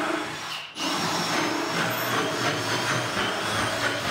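Power drill with a countersink bit running, boring countersunk pilot holes through a plywood sheet. A brief break about 0.7 s in.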